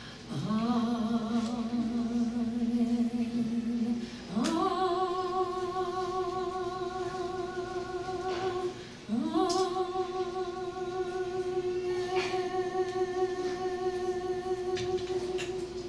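A woman singing into a microphone, holding three long notes with vibrato, each sliding up into its pitch; the first is lower and the second and third are higher.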